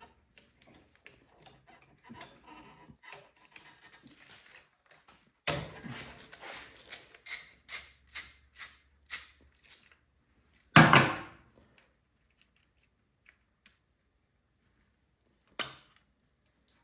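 Hand tools and metal parts handled during carburetor work on a small generator engine: a run of sharp clicks about two a second, then a single loud metallic clunk, and a short knock near the end.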